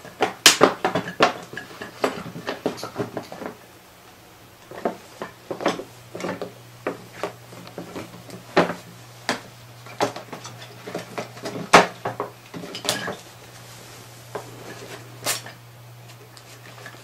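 Christmas baubles and ornaments clinking and rattling against each other and against a clear plastic container as a cat paws and noses into it. Irregular clusters of sharp clinks, busiest in the first few seconds, then scattered and sparser toward the end, over a steady low hum.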